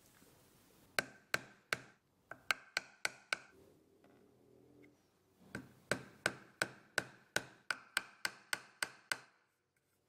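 Small hammer tapping a metal nameplate onto a coffee grinder's painted box, fixing the badge in place. Light, sharp taps with a brief metallic ring, in three runs at about three taps a second: three, then about six, then about a dozen.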